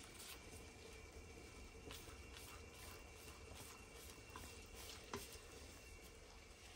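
Quiet handling sounds of plastic-gloved hands folding a soft steamed rice sheet on a glass plate, with a few light clicks over a low steady hum.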